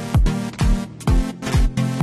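Electronic dance-pop music with a steady kick drum about twice a second under sustained synth chords, and no vocals.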